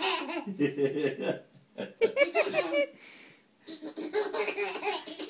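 Baby laughing in repeated bursts of high-pitched giggles, ticklish laughter at a cat licking its toes, with a short pause about three seconds in.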